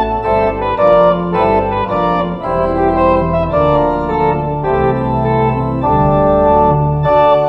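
An organ playing instrumental church music: sustained chords over a deep bass line, the harmony changing about every second.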